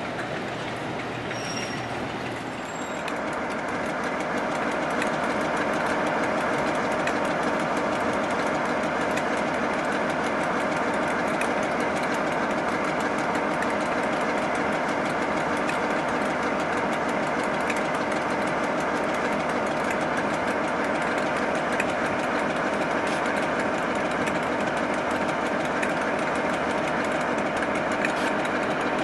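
Colas Rail class 47 diesel locomotive and preserved class 20 diesels passing at low speed: a steady diesel engine drone with wheel and rail noise. It grows louder about three seconds in as the locomotives draw alongside, then holds steady.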